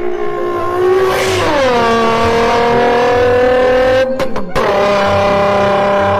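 High-pitched, car-engine-like drone that drops in pitch about a second and a half in, then holds steady. It breaks off briefly about four seconds in, then carries on at the same pitch.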